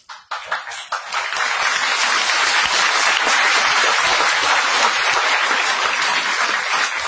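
Audience applauding: dense clapping that builds within the first second, holds steady and thins out near the end.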